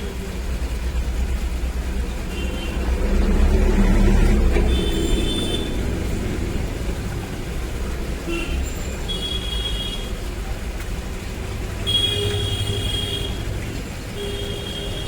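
Low, steady vehicle rumble, with brief high-pitched tones coming and going over it.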